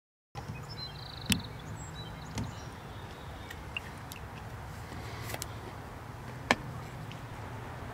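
A few sharp knocks of a plastic hose fitting and wire-reinforced hose being handled on a truck's plastic bedliner tailgate, the loudest about a second in and again near the end, over a steady low hum.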